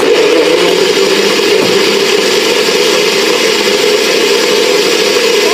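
NutriBullet blender motor running at full power, blending a smoothie with ice and milk in the cup. It starts suddenly and holds one steady, loud whir.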